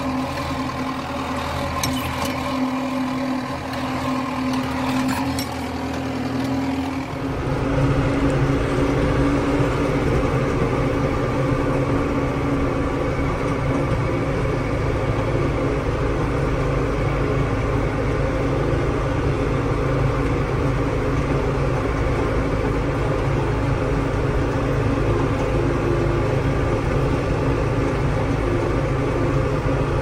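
New Holland TD 5.90 tractor's diesel engine running while driving, heard from inside the closed cab. About seven seconds in, the sound changes abruptly and becomes louder and deeper, then holds steady.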